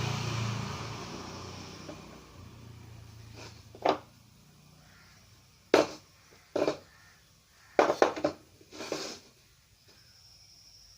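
A passing vehicle fading away, then a handful of short, sharp knocks and clicks spread over several seconds, like small hard objects being set down or handled.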